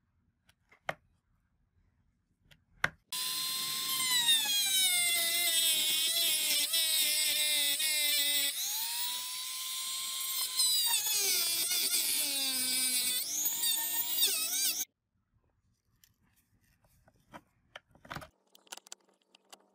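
Handheld rotary tool running at high speed, a small wheel on it grinding rust off the metal switch parts inside an angle grinder's housing; its whine dips and recovers as it bites into the part, starting about three seconds in and cutting off suddenly after about twelve seconds. A few light clicks come before and after.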